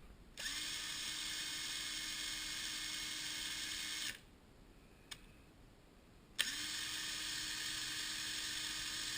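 A small electric power tool, drill-like, runs twice for about three and a half seconds each time. Each run spins up quickly, then holds a steady pitch.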